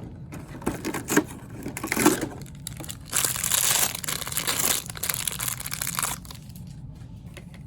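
Small plastic packaging bag handled and torn open by hand: a few crinkles and clicks first, then about three seconds of steady crinkling and tearing.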